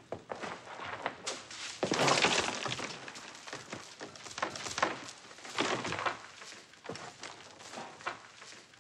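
Beads from torn bead curtains clattering and scattering across a hard floor during a scuffle, with many small knocks; the biggest clatter comes about two seconds in.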